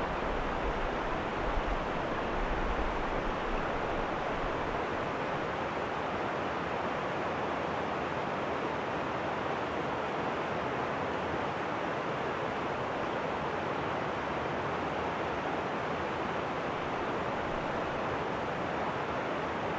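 Stream water rushing and splashing steadily over a low rock ledge in a small cascade. A low rumble comes and goes in the first few seconds.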